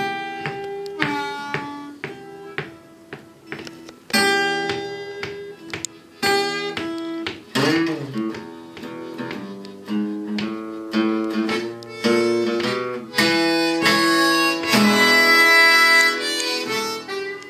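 Blues harmonica solo over acoustic guitar picking: sustained harmonica chords and wailing notes with a bent note about eight seconds in, growing loudest over the last few seconds before easing off near the end.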